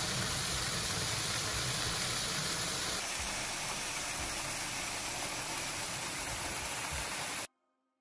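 Small waterfall pouring over granite rock in a mountain stream, rushing steadily. It is a little quieter after about three seconds and cuts off abruptly near the end.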